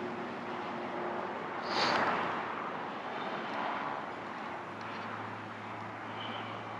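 Gusty wind rushing, with a stronger gust swelling and fading about two seconds in, over a faint steady low hum.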